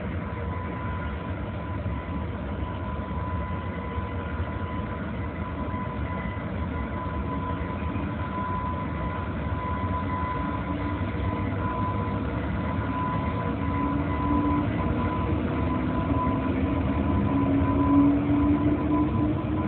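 JR Freight EH500 'Kintaro' electric locomotive pulling a freight train away from a stop: a steady rumble of the moving train under a constant high tone. Over the second half a motor whine slowly rises in pitch and the sound grows louder as the locomotive gathers speed.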